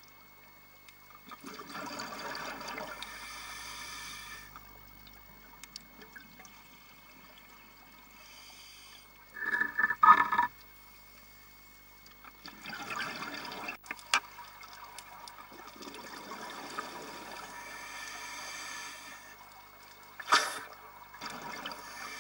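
Scuba diver's regulator exhaust underwater: bursts of exhaled bubbles rushing and gurgling past the camera housing, several in a row a few seconds apart, the loudest a short burst about ten seconds in.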